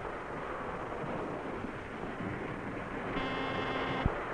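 A steady rushing noise, then about three seconds in a held, buzzy pitched tone starts and is cut off by a sharp click near the end.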